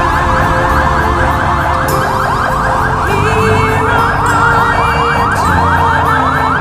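Siren in a fast yelp pattern, rapid rising sweeps repeating several times a second, over background music; it cuts off suddenly at the end.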